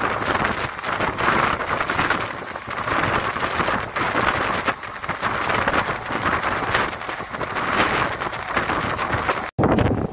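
Passenger express train running at speed, heard from an open coach window: a steady rushing rumble of the train on the track mixed with wind buffeting the microphone. It breaks off for an instant near the end.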